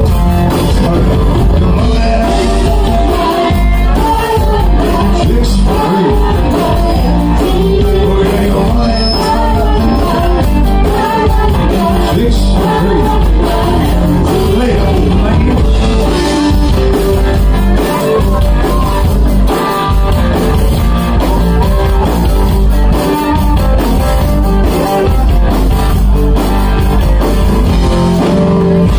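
Live rock band playing loud and without a break: a woman singing lead over electric guitar, bass and a drum kit.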